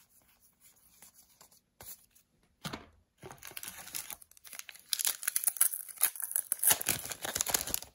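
Foil trading-card booster-pack wrapper being torn and crumpled by hand: a short rustle about two and a half seconds in, then continuous crinkling that gets louder over the last three seconds.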